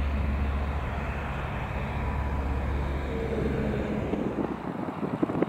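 Single-engine piston light aeroplane flying past, a steady low engine and propeller drone that fades out about four and a half seconds in. Gusts of wind buffet the microphone near the end.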